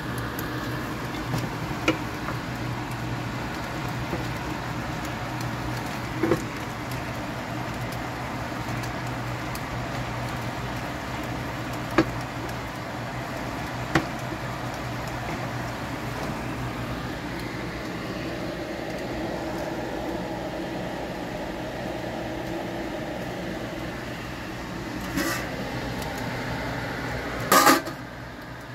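Steady low mechanical hum of a kitchen appliance, with a few single clinks of a utensil against a steel pan. Near the end comes a louder clatter of a metal spoon in an aluminium bowl.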